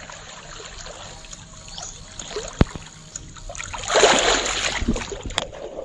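Shallow river water splashing and sloshing as a person moves through it by a grassy bank, with a louder burst of splashing about four seconds in.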